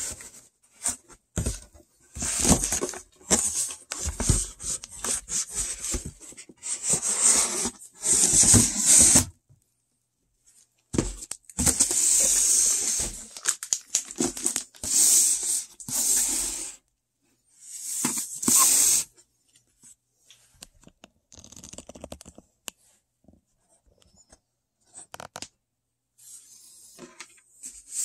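Cardboard box being opened by hand: packing tape ripped and peeled off in repeated bursts, with shorter rustles and scrapes of cardboard between them and a few pauses.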